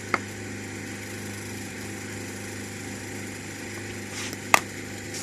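A steady engine-like hum with two sharp knocks of a cricket bat striking the ball at net practice: a lighter one just after the start and a louder crack about four and a half seconds in.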